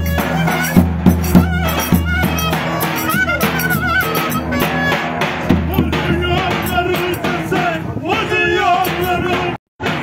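Turkish folk dance music from a clarinet and a davul bass drum: the clarinet plays a wavering, trill-laden melody over the drum's steady low beats. The sound cuts out for a moment near the end.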